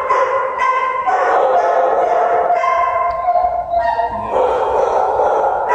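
Several dogs barking and howling together in concrete shelter kennels, a continuous echoing din with no break.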